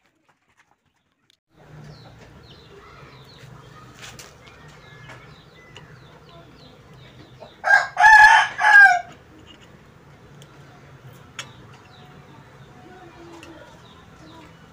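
A loud animal call in three linked parts, lasting about a second and a half past the middle, over faint chirping and a low steady hum.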